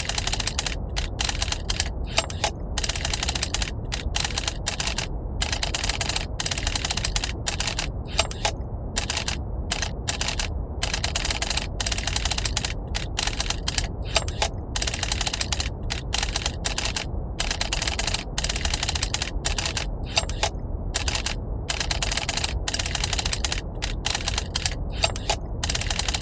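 Typewriter keys clattering in rapid, dense runs broken by short pauses, over a steady low brown-noise rumble.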